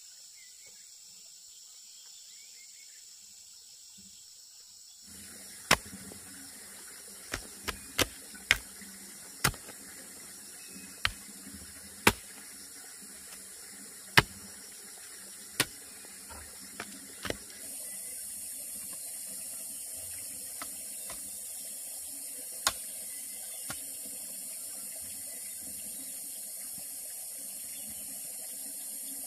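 A series of sharp knocks or strikes, about a dozen at irregular spacing, over a steady hiss; the hiss grows louder a little past the middle and only two or three more knocks follow.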